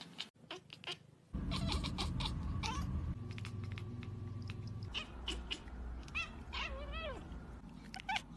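Domestic cat meowing: a couple of drawn-out meows that bend up and down in pitch about six to seven seconds in, and a shorter one near the end. Underneath is a steady low hum that starts about a second in, with scattered clicks before it.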